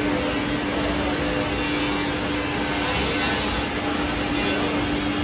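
Steady machine hum: a constant low tone over an even hiss of noise that does not change.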